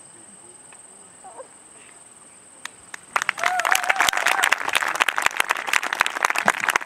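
Audience breaking into applause about three seconds in, steady clapping from many hands with a brief voice cheering over it.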